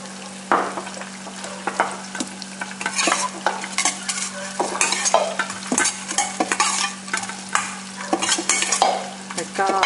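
Metal spoon scraping and clinking against a stainless steel mixing bowl in irregular strokes, tossing a mixture of mushrooms and tofu. The stirring starts about half a second in, over a steady low hum.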